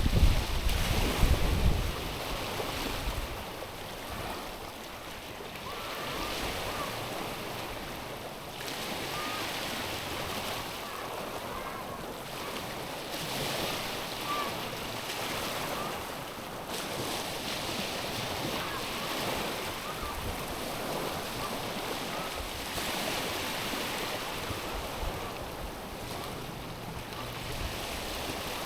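Small waves lapping on a stony, pebbly shore, each wash swelling and receding every few seconds. A low rumble sounds in the first two seconds.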